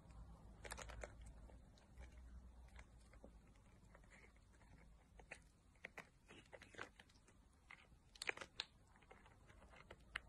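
A cat chewing and biting at a plastic treat packet: faint, scattered clicks and crinkles, with small clusters about a second in and about eight seconds in.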